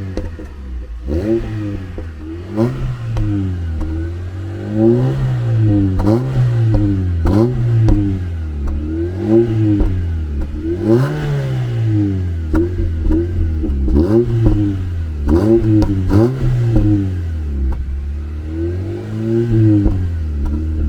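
Honda CR-Z's 1.5-litre four-cylinder engine, breathing through a newly fitted sport exhaust, revved again and again in short blips that rise and fall about once a second, with sharp pops at several of the revs. The engine is still cold and warming up.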